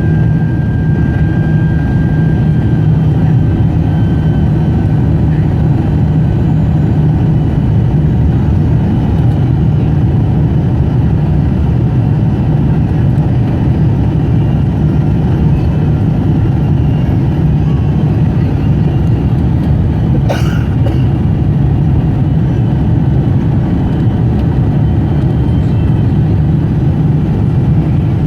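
Steady low rumble inside a Boeing 747-400 airliner's cabin: jet engine and airflow noise, with one brief click about twenty seconds in.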